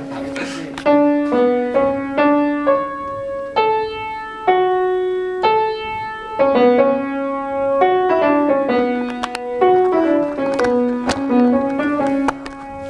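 Upright piano played by hand: a slow melody of single struck notes stepping up and down over lower held notes, each note left to ring.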